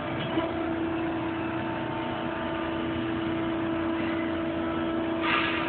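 Cincinnati CBII 230-ton hydraulic press brake running, its hydraulic pump unit giving a steady hum with a constant tone. A short hiss about five seconds in.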